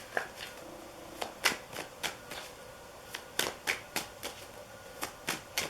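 Tarot cards being handled and flipped or laid down: a dozen or so short, sharp snaps and taps at irregular intervals.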